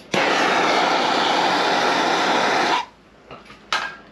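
A handheld air blower runs at full blast, a steady rush of air that starts abruptly and cuts off after about two and a half seconds.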